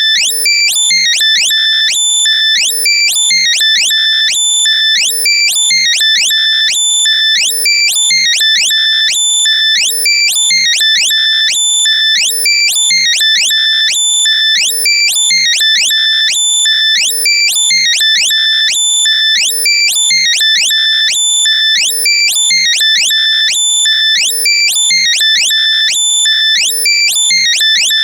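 Loud, compressed electronic locator sound for finding lost earbuds: high-pitched tones with many quick rising sweeps, repeating in a steady pattern without a break.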